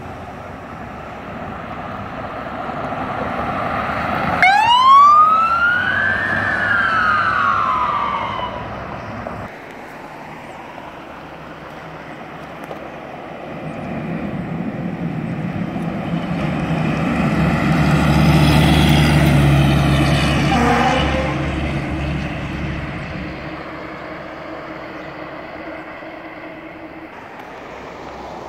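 A fire truck siren gives one wail about four seconds in, rising then falling. Later the fire truck passes close by, its heavy engine rumbling louder to a peak about two-thirds of the way through and then fading away.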